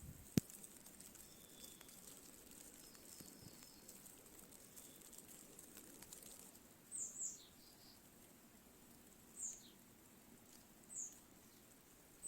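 Faint short, high chirps of a small bird, each falling in pitch: a pair about seven seconds in, then three single calls a second or two apart, over a faint steady outdoor hush. A single sharp click comes just after the start.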